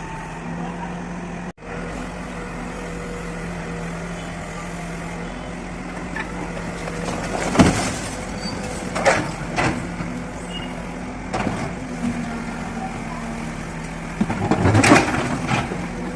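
Demolition work: an engine runs steadily while sharp knocks and crashes break in a few times, the loudest a cluster near the end.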